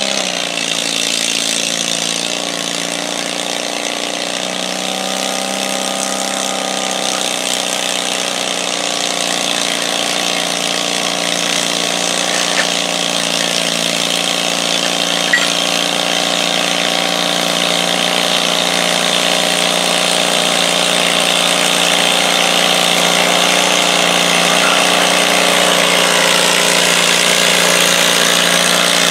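Stock garden tractor's engine pulling under load as it drags a weight sled, revving up in the first second and then holding a steady pitch. Two brief clicks midway.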